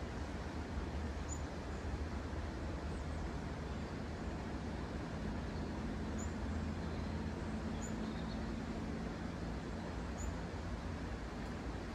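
Steady outdoor ambience by a canal: an even hiss over a low rumble, with a faint low hum joining in about halfway through and fading near the end, and a few faint bird chirps.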